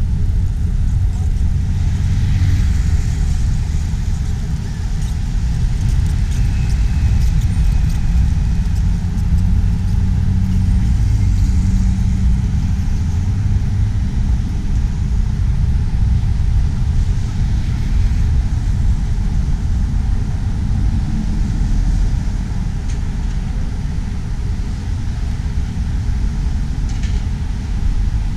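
Steady low rumble of outdoor city ambience, with road traffic passing.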